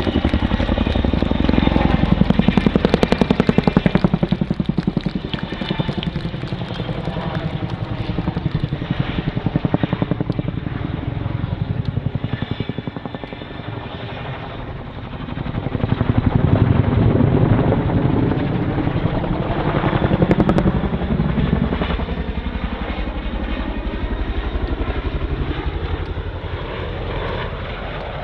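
RAF Boeing Chinook tandem-rotor helicopter flying a display, its two rotors giving a rapid, continuous blade slap over the turbine noise. It grows louder twice, about two seconds in and again past the middle, as it passes closer.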